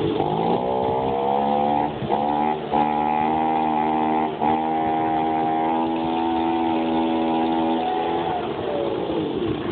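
Small Echo handheld power tool's engine revved up from idle and held at high speed, briefly dipping a few times, then winding down near the end.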